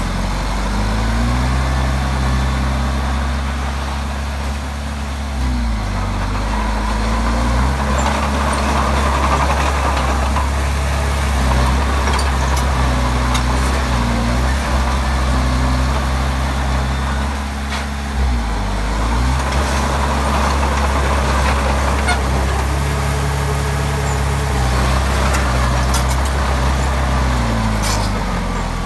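Komatsu D20P bulldozer's diesel engine working, its pitch rising and falling repeatedly as the load changes, with a few sharp metallic clanks.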